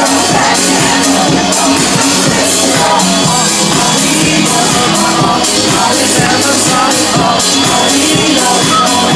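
Live pop music played loud through a stage PA: a band with a steady beat and a woman singing.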